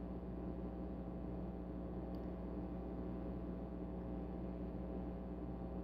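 Steady low background hum, unchanging throughout, with a single faint tick about two seconds in.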